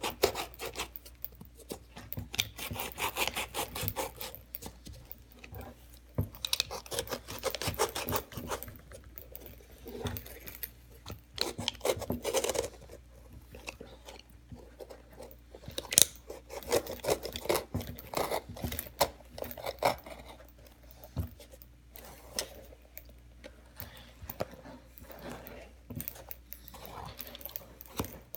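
Leather Timberland boots rubbed hard against each other, one boot's toe and sole edge scraping back and forth over the other's worn-through toe: a rough rasping scrape of quick strokes in bouts with short pauses.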